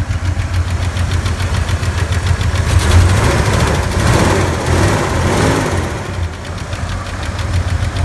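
Ford F-150's 302 V8 idling with the hood open, with a rapid, even tick running through it. The tick comes from a lifter on the right bank: the motor needs work. The engine is louder for a few seconds in the middle.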